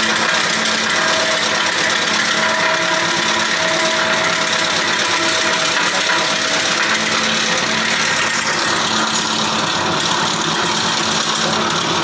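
Small electric-motor, belt-driven wood chipper running under load as a branch is fed in and chipped, a loud, steady dense noise over a machine hum.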